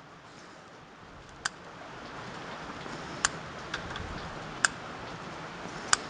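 Sharp bonsai scissors snipping off the old, dead roots of a Cattleya orchid: about five crisp, irregularly spaced snips over a faint hiss.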